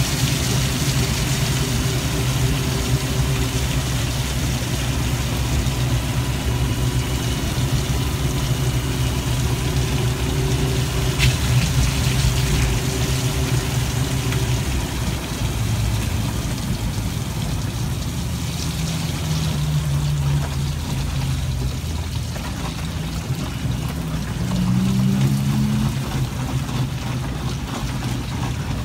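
Riding inside an ELF velomobile on a wet road in the rain: a steady wash of water and tyre noise with a low hum underneath that rises in pitch twice in the second half.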